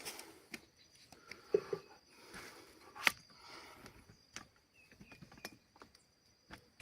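A camera tripod being opened and set up by hand: scattered clicks and knocks of its legs and fittings, with some rustling, and one sharper click about three seconds in.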